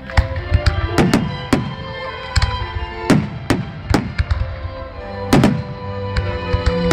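Fireworks bursting in about ten sharp bangs, irregularly spaced, over loud music from the show's soundtrack playing throughout.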